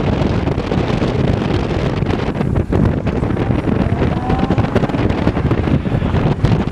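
Wind buffeting the microphone in a steady loud rush, with a distant car engine faintly underneath whose note rises slowly about halfway through.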